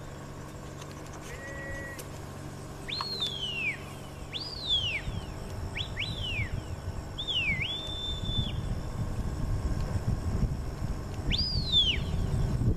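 A handler's stock-dog whistle giving commands to a working border collie: a series of sharp whistled notes, most swooping up high and falling away, one dipping and rising into a held note. Wind rumbles on the microphone underneath, growing toward the end.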